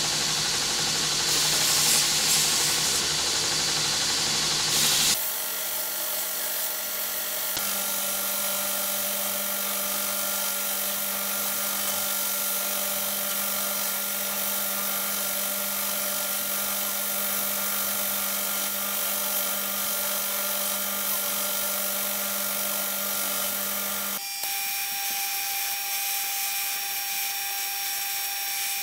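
Electric belt grinder running while its abrasive belt grinds a steel sword blade: a steady motor whine under the hiss of grinding. The sound is louder and harsher for the first few seconds, then changes abruptly about five seconds in and again near the end.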